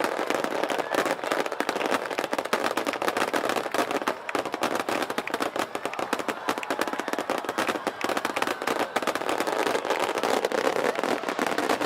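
Aerial fireworks bursting in a dense, unbroken barrage of crackling pops and small bangs, many each second.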